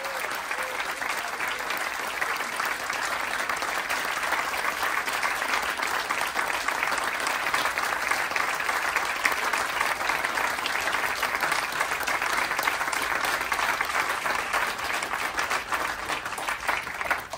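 An audience applauding, dense and steady clapping that cuts off suddenly at the end.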